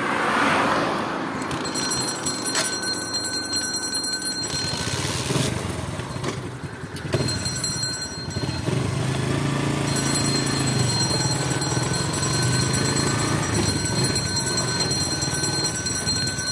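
A motor vehicle's engine running close by, its hum wavering in pitch through the second half, over steady background noise.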